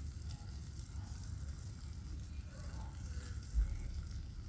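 Low rumble of wind on the microphone over a faint steady hiss, with a brief louder bump about three and a half seconds in.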